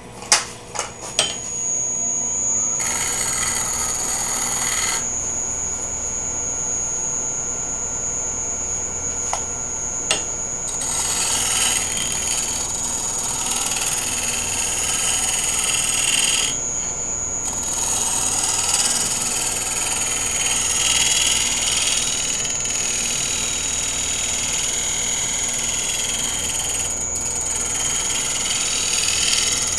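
Wood lathe spinning a wooden vessel with a steady high whine. A gouge shear-cuts the turning wood, a hissing scrape that comes in stretches as the tool is worked across the surface. A few sharp clicks sound near the start.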